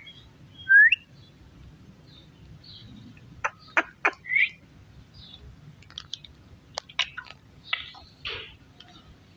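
Rose-ringed parakeet giving a short rising whistled chirp about a second in, then scattered sharp clicks and brief chirps as it feeds on muskmelon seeds.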